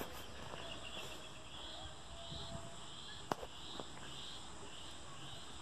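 Faint insect chirping outdoors, a high pulse repeating about twice a second over quiet background hiss, with a single sharp click about three seconds in.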